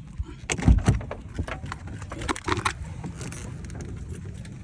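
Keys jangling and clicking as they are handled, with a couple of heavier knocks about half a second to a second in, over a steady low rumble.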